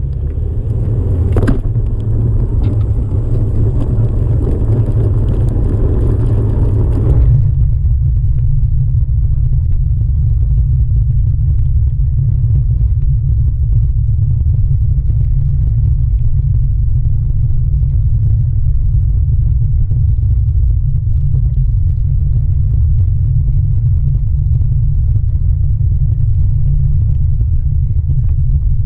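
Steady low rumble of wind and rolling vibration on a camera mounted low on a moving OneWheel electric board. For the first seven seconds a rougher rolling noise from the tyre on asphalt rides on top, with one sharp click about a second and a half in; it stops abruptly, leaving only the low rumble on the wooden bridge deck.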